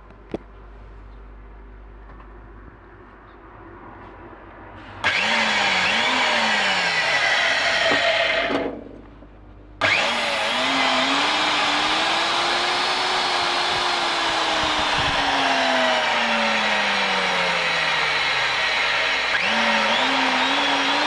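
Nitto Kohki Atra Master M-250 magnetic drilling machine's electric motor. After a single click near the start, the motor starts about five seconds in, runs down about three seconds later and starts again. It then runs with a loud whine whose pitch slowly rises and falls.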